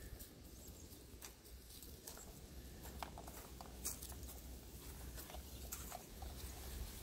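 Faint footsteps of a borzoi and people walking over dry grass, with scattered light ticks and rustles over a steady low rumble.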